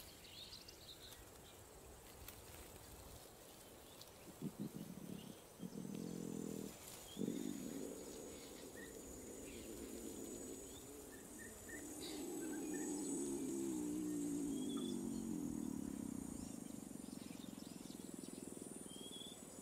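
A lion cub's low distress sounds during a seizure. They start about four seconds in as short quick pulses, then become one long rough moan that is loudest in the middle and fades near the end.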